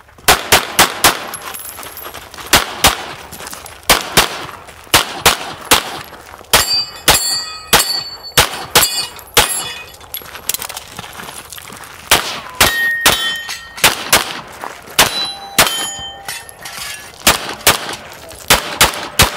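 Pistol fired in rapid strings of two to five shots with short pauses between target arrays. After some shots a steel target rings briefly as it is hit.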